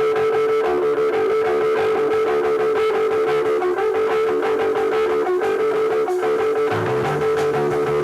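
Live electric guitar playing the opening of a new-wave rock song, a steady ringing note sustained over picked figures; a bass guitar comes in near the end.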